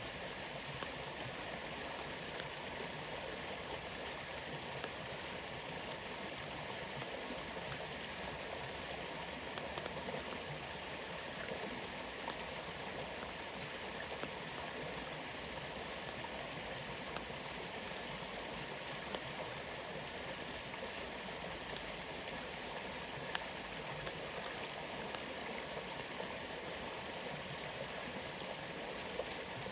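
Rainforest waterfall rushing steadily under falling rain, with scattered louder drips ticking now and then.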